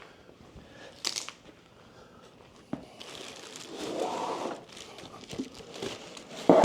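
Speaker packaging being handled: crinkling and rustling of packing material, with a few sharp clicks and knocks and a louder thump near the end.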